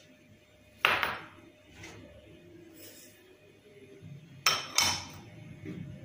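Glass bowls clinking together as sesame seeds are tipped from a small glass bowl into a glass mixing bowl. There is one sharp ringing clink about a second in, fainter taps after it, and two more clinks close together about four and a half seconds in.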